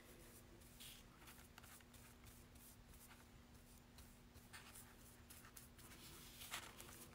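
Near silence: faint, scattered brushing and rubbing strokes as Mod Podge is worked over a paper napkin on wood, over a faint steady hum.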